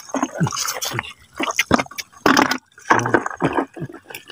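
Shallow water splashing and sloshing in short, irregular bursts.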